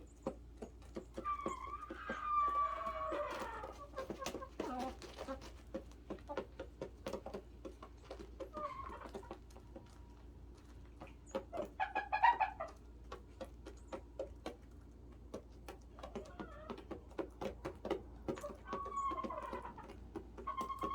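Backyard hens clucking and calling off and on, with scattered short clicks and taps between the calls.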